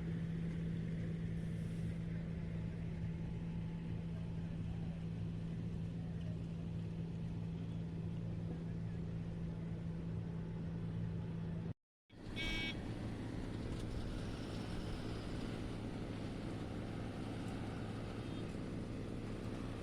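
Wirtgen cold milling machine running steadily on diesel power as it mills up the old asphalt road surface, a continuous low drone. About twelve seconds in the sound drops out for a moment and comes back with a lower hum.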